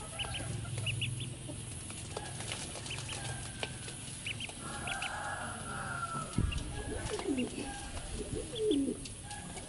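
Ducklings peeping: short high peeps, often in pairs, scattered throughout. A few lower, falling calls from another bird come in between about seven and nine seconds in, and there is a dull thump about six and a half seconds in.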